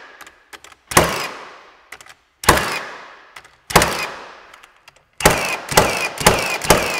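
Milwaukee M18 cordless framing nailer firing 3-inch smooth-shank nails into dense oak. Single shots come about every second and a half, each a sharp crack that rings out and fades. From about five seconds in, a fast run of shots follows at about three a second.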